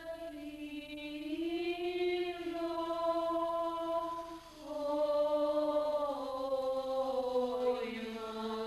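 Orthodox church chant: a slow melody of long held notes that slide gently in pitch, with a brief pause about four and a half seconds in.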